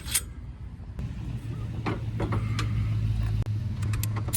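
A few sharp metallic clicks of a wrench on the RV stabilizer jack's mounting bolts, over a steady low hum that starts about a second in. Near the end, rapid clicking begins.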